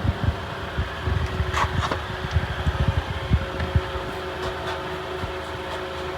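2006 Honda Accord's 2.4-litre four-cylinder engine idling with a steady whirring hum, and irregular low bumps through the first four seconds.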